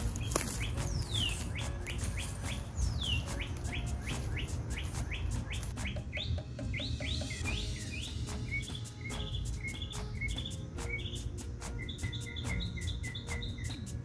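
Wild birds chirping and calling: two clear falling whistles in the first few seconds, then quick runs of short repeated high notes, over a steady low rumble.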